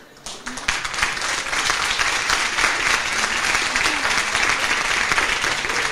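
Audience applauding: clapping breaks out suddenly within the first second and holds steady.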